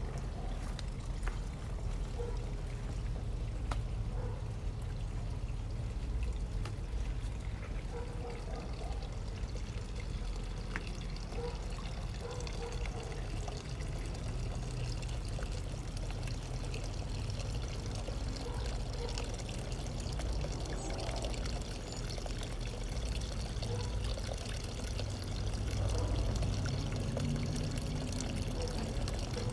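Steady trickle of running water, over a low rumble.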